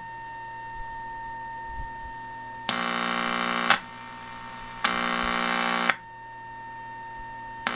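A TV set's audio circuit, driven by an injected test signal, gives out a weak steady test tone during signal tracing of a weak-sound fault. The tone is broken twice by about a second of loud, harsh buzz, the video buzz the set makes when the probe touches the detector.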